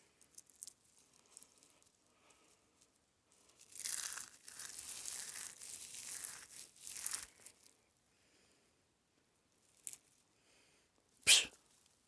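Dry grass and brush rustling and crunching for a few seconds, as when someone pushes through it on foot, then a brief crackle and, near the end, one sharp, louder crackle.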